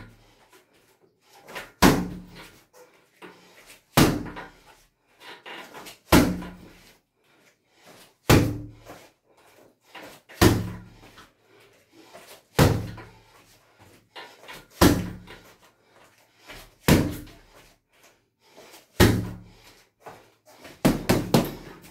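Hanging heavy punching bag being struck hard with Muay Thai kicks and punches: one loud thud about every two seconds, each followed by softer knocks, then a quick flurry of several strikes near the end.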